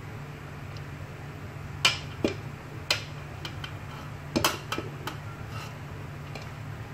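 Aluminium colander knocking and clinking against the rim of an aluminium cooking pot as cooked rice is tipped and shaken out of it: a few sharp metallic knocks, the loudest about two seconds in, and a quick cluster around four and a half seconds, over a steady low hum.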